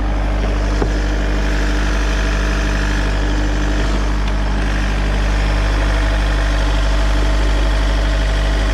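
Peugeot 407's 2.0 HDi four-cylinder turbodiesel engine running steadily at a fast idle of about 1500 rpm, the accelerator held down so the engine warms up and the thermostat opens while air is bled from the cooling system.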